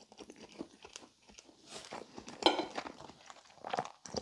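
A man chewing a mouthful of Swedish meatball close to the microphone: soft, wet mouth sounds and small clicks, a little louder about two and a half seconds in.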